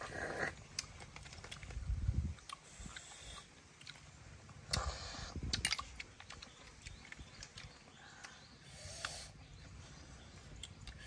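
Cooked snails being sucked out of their shells: short slurping sucks, the loudest about 2 and 5 seconds in, with scattered light clicks of shells being handled and chewing between them.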